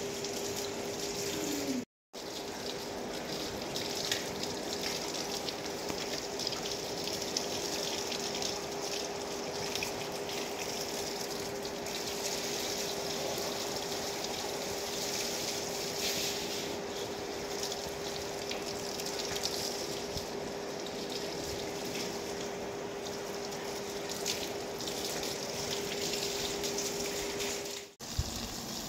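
Water running from a garden hose and splashing on a wet paved floor, under a steady hum. The sound drops out briefly about two seconds in and again near the end.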